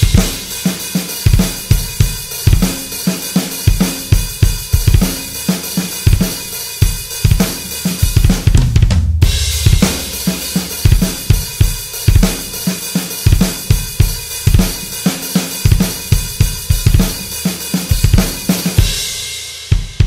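Electronic drum kit played at a steady groove: kick-drum strokes from a PDP 502 double bass drum pedal, several a second, under snare hits and a continuous wash of cymbals and hi-hat. The playing stops near the end.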